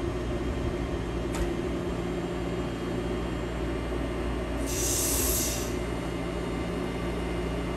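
FS E652 electric locomotive standing with its auxiliary machinery running: a steady hum with a few constant low tones. There is one sharp click just over a second in, and a short hiss of released air lasting about a second near the middle.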